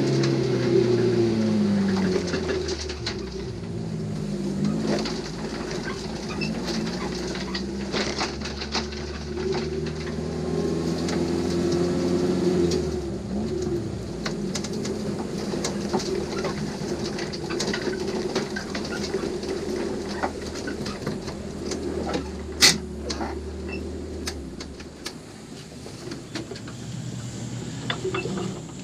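Race car's engine heard from inside the cabin, its revs falling during the first few seconds as the car slows after the run, then running steadily at low revs while it rolls along at low speed. A sharp click comes about three-quarters of the way through, and the engine gets quieter near the end as the car comes to a stop.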